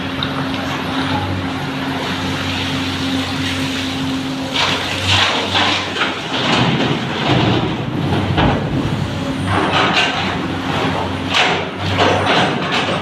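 Diesel engines of a tracked excavator and an Eicher dump truck running steadily inside a rock tunnel. From about four seconds in, loose rock muck clatters and rumbles in irregular bursts as the excavator loads it into the truck's tipper body.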